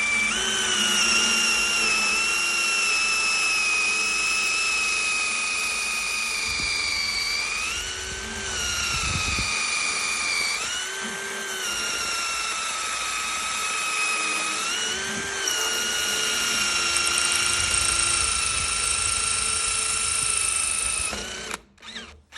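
Electric drill boring the lock borehole into a door, a steady whine whose pitch rises briefly three times as the load changes, stopping near the end.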